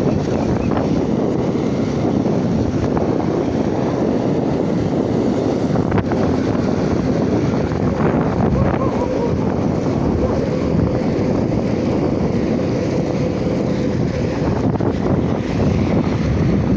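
Wind buffeting the phone's microphone while riding a road bike, a steady loud rush of air mixed with the sound of the ride.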